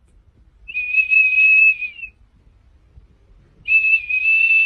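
A golden retriever blowing a small plastic whistle held in its mouth: two long, steady, high whistle tones of about a second and a half each, the second starting about three seconds after the first.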